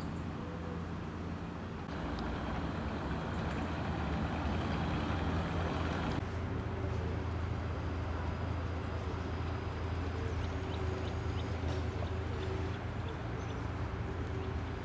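Steady low engine rumble, like traffic or machinery, getting louder about two seconds in, with a few faint high chirps near the end.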